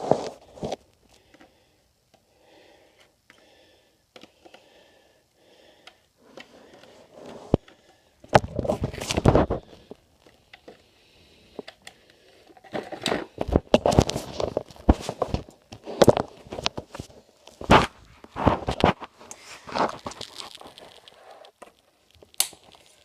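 Packaging being handled and opened: rustling, crinkling and tearing with sharp clicks and knocks. A loud rustling burst comes about eight seconds in, and a busy run of crinkles and clicks follows from about thirteen seconds.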